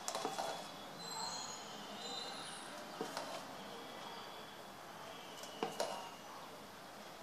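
Ladle knocking a few times against a stainless-steel pot while scooping and pouring idli batter: a sharp clink at the start, another about three seconds in, and two close together near the end, over a steady hiss.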